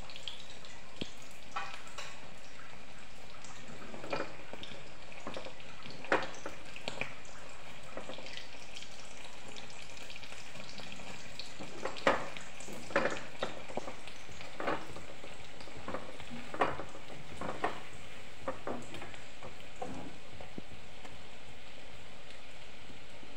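Batata vadas deep-frying in hot oil in an iron kadhai: a steady sizzle, with irregular sharp clicks and knocks of a perforated steel slotted spoon against the pan as the vadas are turned, the loudest about twelve seconds in.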